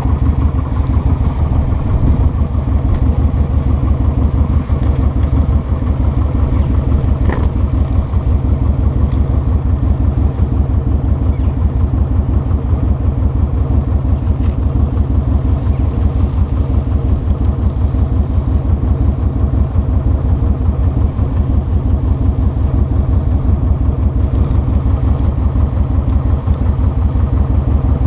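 Kawasaki Vulcan 2000's two-litre V-twin engine running steadily at low revs, an even train of low exhaust pulses with no revving.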